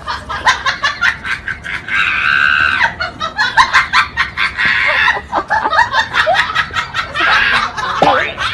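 People laughing and squealing, with many sharp clicks and taps throughout.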